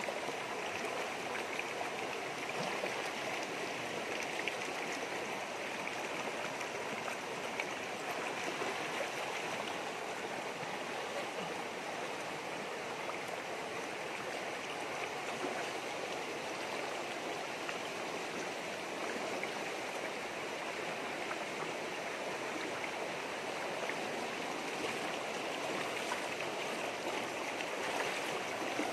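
Rocky river rushing over rapids and boulders: a steady rush of flowing water.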